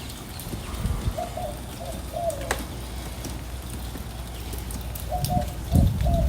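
A dove cooing: two short phrases of a few low notes each, the second about four seconds after the first, over low rumbling wind on the microphone.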